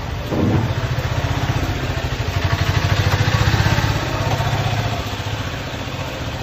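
A motor vehicle's engine running with a steady fast low pulse. It grows louder about two seconds in and eases off again about two seconds later.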